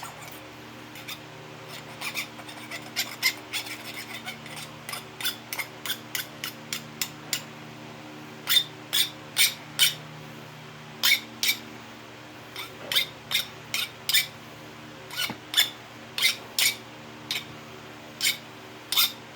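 A flat file rasping across the cut end of a copper pipe to take off the burrs. The strokes are short and quick, coming in runs with brief pauses between them.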